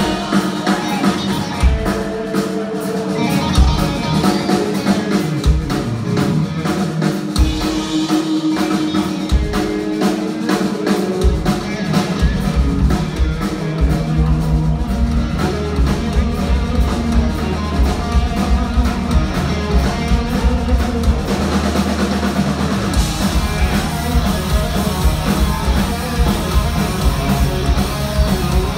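A heavy metal band playing live: distorted electric guitars over bass and drum kit. Sparse accented hits at the start, then from about eleven seconds in the full band drives steadily on.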